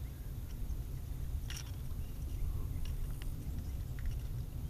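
A few small clicks and taps as the hook and lure are worked out of a small bass's mouth by hand, one clearer about a second and a half in, over a steady low rumble.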